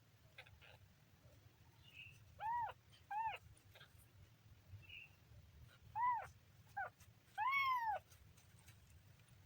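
Kitten mewing: five short high-pitched mews, each rising and falling in pitch, in two pairs and then one longer mew near the end.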